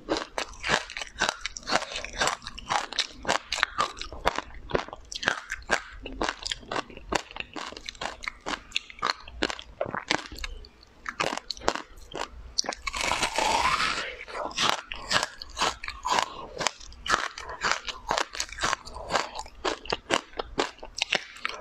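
Close-miked crunching and chewing as a hard, brittle food is bitten, with many sharp crunches several times a second. A denser hissing crackle lasts about a second near the middle.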